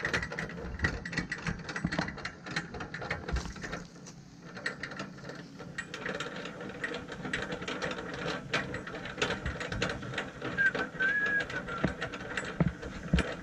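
Irregular clicks, rattles and scrapes as the Camco Secure Step's adjustable support stand is set onto gravel under an RV's bottom entry step and turned by hand to raise it against the step.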